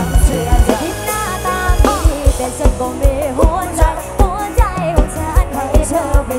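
Live Thai pop band playing, with a man and a woman singing together into microphones over a drum kit keeping a steady kick-drum beat.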